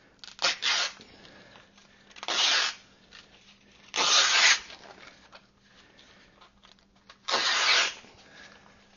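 A torn abrasive sanding belt being ripped lengthwise by hand into narrow strips: four short tearing rips of about half a second each, a second or more apart.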